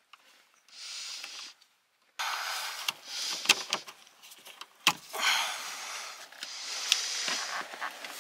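Hands working at plastic trim and a wiring harness inside a car: rustling and scraping, with several sharp clicks.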